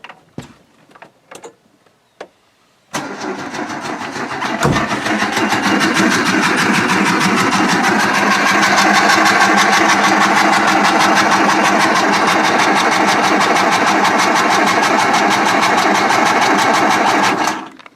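Opel Kadett D's petrol engine being cranked over on the starter motor, after a few light clicks, in one long spell of about fourteen seconds that starts abruptly about three seconds in and stops just before the end. It needs a lot of cranking because there is no fuel pressure yet.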